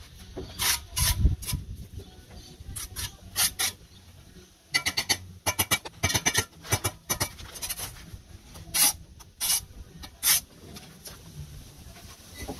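Steel bricklaying trowel scraping and tapping on bricks and wet mortar as bricks are bedded: a series of short scrapes and clicks, with a quick run of taps about five seconds in and a few louder scrapes near nine and ten seconds.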